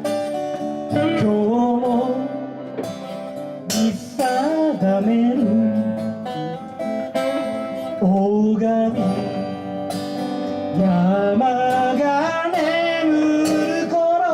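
A band playing a song: strummed acoustic guitar under a gliding, bending melody line, with no clear sung words.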